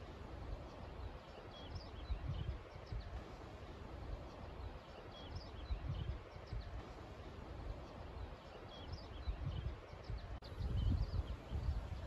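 Wind gusting over the microphone in a low rumble, strongest near the end. Birds chirp in short high notes throughout.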